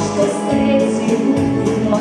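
Music with a boy singing into a microphone over an amplified backing track, held pitched notes over a steady beat.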